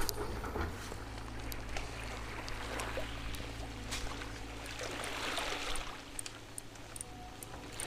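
Shallow seawater sloshing and trickling, swelling about five seconds in, over a steady low hum.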